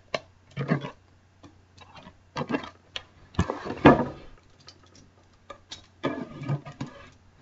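Packaging being handled as a box is opened: irregular rustling, scraping and clicks, with a louder rustling burst about four seconds in.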